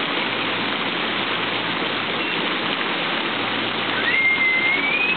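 Steady rush of water spraying and falling into a pool from a water-play structure. A thin, high squeal rises and then holds briefly about four seconds in.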